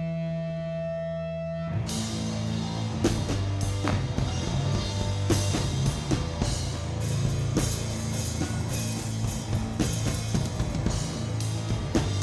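Live rock band: a held, steady droning chord, then about two seconds in drums, bass and guitar come in together and play on with a steady beat.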